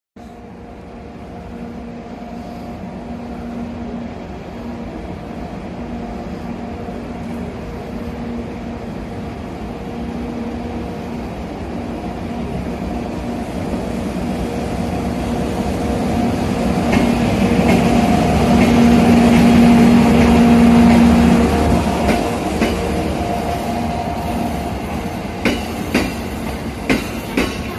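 JR EF64 1000-series electric locomotive slowly towing a set of E217-series commuter cars past: a steady hum and rumble grows louder as the locomotive approaches and peaks as it passes. Near the end the towed cars' wheels clack sharply over rail joints several times.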